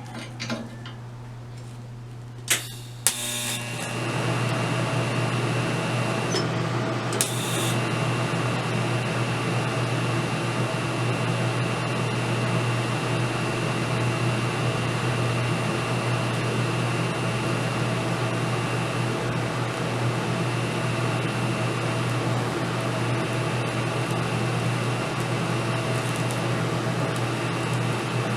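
Welder on a cracked bicycle frame: a steady mains hum, then two sharp clicks about three seconds in. After the clicks, a steady welding-arc noise starts and holds.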